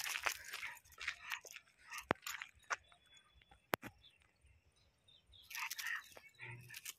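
Footsteps crunching on a gritty paved path during a brisk walk, with scattered sharp clicks; it goes quieter for a couple of seconds in the middle.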